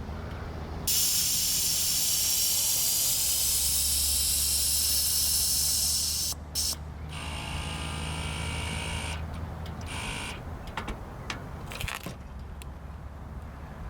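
Air ride rear suspension dumping air to drop the motorcycle: a loud steady hiss of released air that starts about a second in and cuts off sharply about five seconds later. A quieter hiss follows, then a few light clicks.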